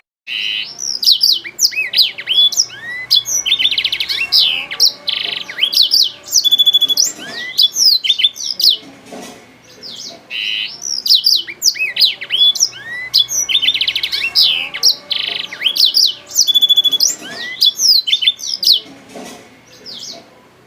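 Blackthroat (black-throated canary) in full song: a long, fast, varied run of high chirps, trills, rapid note series and sweeping whistles. The same sequence of phrases repeats about halfway through.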